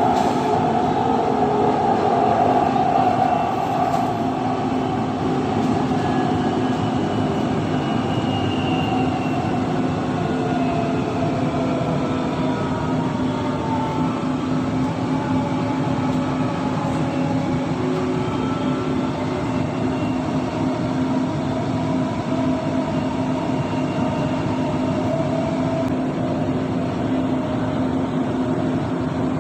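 Dubai Metro train running at speed, heard from inside the carriage: a steady rumble with a constant low hum and faint whining tones that slide up and down in pitch.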